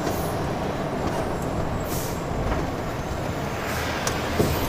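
Steady engine and road rumble heard inside the cab of a heavily loaded articulated lorry driving slowly, with a few short hisses of air from the air brakes.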